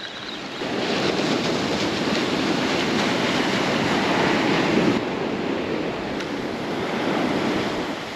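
Surf breaking and washing up the sand in a steady rush, with some wind on the microphone.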